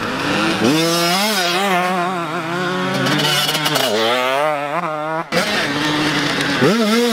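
Dirt bike engines revving hard as riders accelerate along the track, the pitch climbing and wavering with the throttle. The sound breaks off sharply about five seconds in, then another bike revs up near the end.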